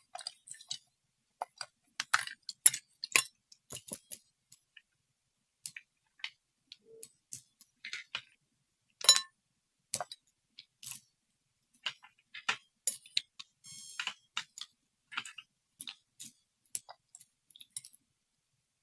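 Irregular small clicks and taps of hard objects being handled and set down, with a short scratchy stretch about two-thirds of the way through.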